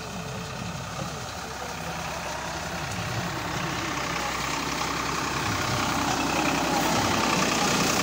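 Tractor engine running steadily as it pulls a round baler through a field, growing gradually louder as it comes closer.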